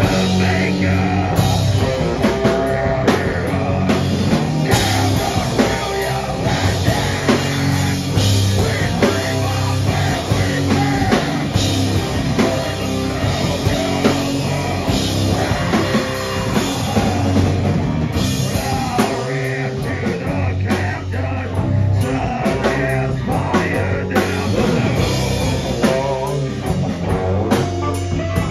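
A loud live rock band: drum kit, electric guitar and bass guitar, with a vocalist singing into a microphone, the playing continuous and dense.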